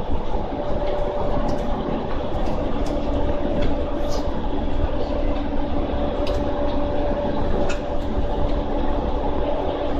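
Running noise heard from inside a JR East E231 series suburban electric train car (one fitted with a replaced VVVF inverter) travelling at a steady speed: a continuous rumble of wheels on the rails with a steady hum from the drive equipment, and a few sharp clicks from the track.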